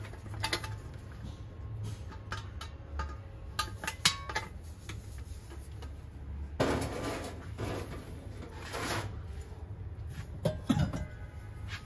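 Brass kitchenware being handled and set down: scattered metallic clinks and knocks, with a couple of seconds of denser rustling and scraping noise in the middle.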